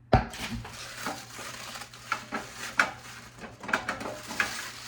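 Metal portable grill parts being handled and set down: a knock right at the start, then a string of light clinks and knocks over rustling packaging.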